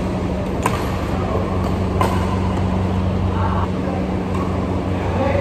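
Badminton racket strikes on a shuttlecock during a rally, sharp cracks about 0.7 s and 2 s in, over the steady low hum of the hall's air coolers.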